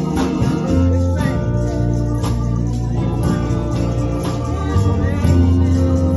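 Gospel music from an electric organ of the Hammond type, holding sustained chords over a moving bass, with singing and a few sharp percussion hits.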